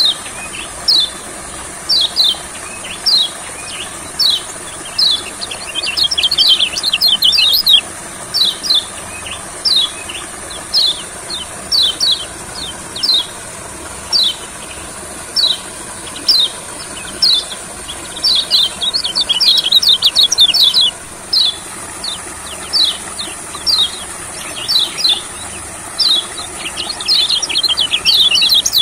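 Kecial kuning, a yellow white-eye, singing: a long run of short, high, downward-slurred chirps. Some come singly with gaps and some run together in fast, dense bursts.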